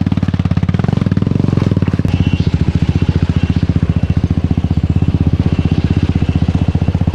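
Motorcycle engine running steadily, with a fast, even pulsing beat.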